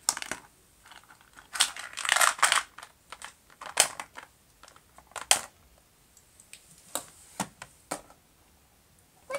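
Small plastic Playmobil toy pieces being handled: scattered clicks and knocks of hard plastic, with a cluster of rustling and clattering about two seconds in and single sharp clicks later on.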